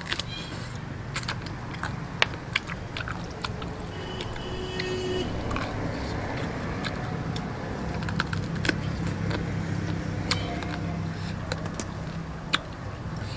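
Close-miked eating: biting and chewing a roasted pig's trotter, with many sharp wet mouth clicks and smacks. A steady low drone runs underneath, growing a little louder after the middle.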